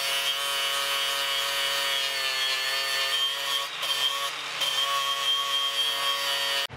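DeWalt FlexVolt brushless cordless angle grinder cutting rusty square steel tubing with a cut-off wheel: a steady high motor whine over the hiss of the wheel biting the steel. It cuts off suddenly near the end.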